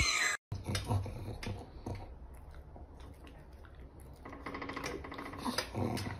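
A loud sound is cut off in the first half second. Then a pug makes short whines and snuffly noises among faint clicks and taps, growing busier about four seconds in.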